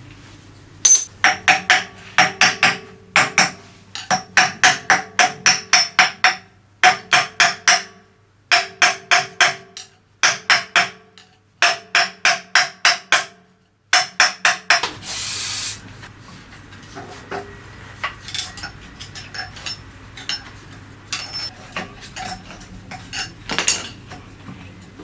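Hammer striking metal in quick runs of ringing blows, about four or five a second, in several bursts. A short hiss comes about fifteen seconds in, followed by quieter clinks and rubbing of metal parts being handled.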